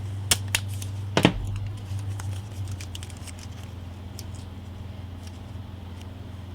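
Small handling noises on a work table as painter's tape is pressed down: a few sharp clicks in the first second or so, then faint light taps, over a steady low electrical hum.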